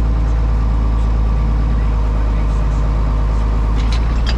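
Tractor engine running steadily at a constant speed, loud and close. A few faint clicks near the end.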